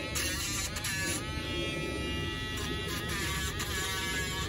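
Dremel rotary tool grinding down a dog's nail. It gives a steady high motor whine whose pitch dips briefly several times as the tool bears on the nail.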